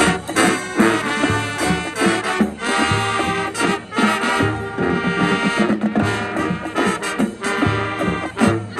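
High school marching band playing, led by brass with trombones and trumpets over a steady drum beat.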